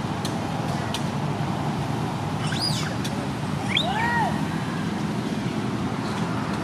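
Steady outdoor hum of distant road traffic. Around the middle come a few brief, high animal calls, each rising and then falling in pitch.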